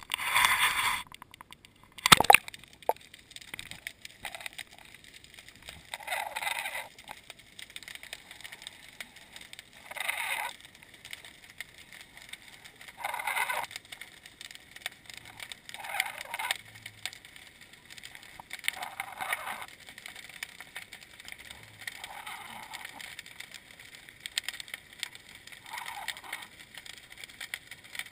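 A sharp splash about two seconds in as a GoPro camera in its waterproof housing goes into the water, then muffled underwater sound heard through the housing, with a short swishing surge every three seconds or so as the camera moves on its line.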